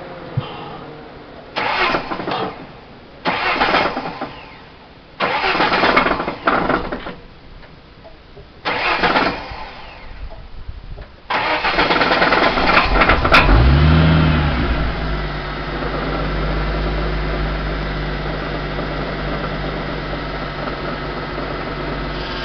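Ford Thunderbird engine cranked in several short tries, then catching about eleven seconds in, revving up briefly and settling into a steady idle. The owner posts this engine as having a knock.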